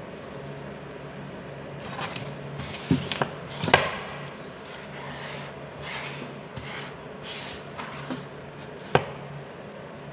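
Hands handling small painted craft pieces and paper on a cutting mat: a few sharp knocks and clicks as pieces are picked up and set down, and rustling as paper is slid aside, over a steady low hum.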